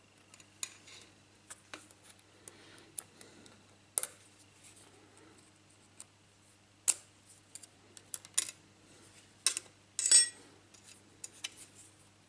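Small metal clicks, taps and scrapes of a hex key and a steel pick working a broken cutting insert and its screw out of a milling cutter. The clicks are irregular, with the loudest cluster about ten seconds in.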